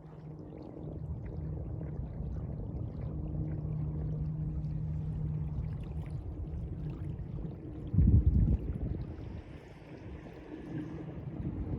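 Sea water sloshing and lapping, with wind buffeting the microphone and a low steady hum through the first half. About eight seconds in there is a brief, loud low thump, the loudest moment, followed by a softer hiss of water.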